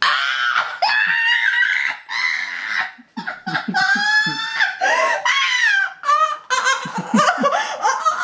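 A woman shrieking and laughing in high, gliding, breathless peals that start suddenly, with more laughter joining toward the end: a reaction to tasting a jelly bean in the Bean Boozled challenge.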